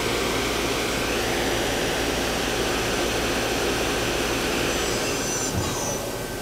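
Nakamura-Tome WTS-150 CNC lathe's right spindle, carrying a 6-inch chuck, running at 3,500 RPM with a steady whir. About five seconds in it brakes to a stop with a short falling whine and a small knock.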